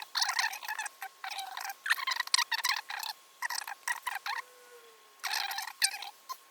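Rapid clicking in repeated bursts of about half a second with short gaps between them.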